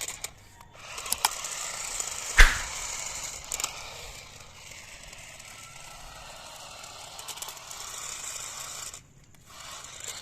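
Toy RC monster truck's small electric motor and gearbox whirring as it drives over rough ground, with scattered clicks and one sharp knock about two and a half seconds in. The running sound drops away about nine seconds in.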